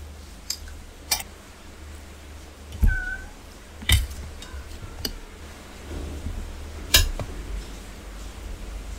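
Steel spoon and stainless steel plates and bowls clinking several times as curry is served and eaten by hand, with a brief high squeak about three seconds in.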